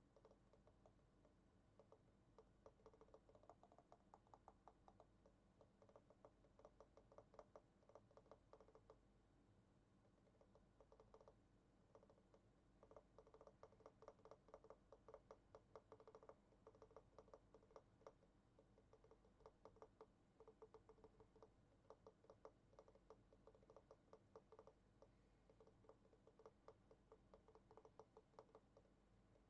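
Faint typing on a computer keyboard: quick runs of key clicks in bursts of a few seconds, with short pauses between them.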